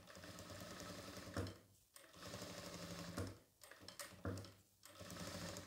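Jack F4 industrial lockstitch sewing machine stitching cotton in short runs, starting and stopping about five times, with runs of up to about a second. This is feed-and-stop control practice: the operator eases the pedal to bring the needle down on each marked line rather than letting the machine run fast.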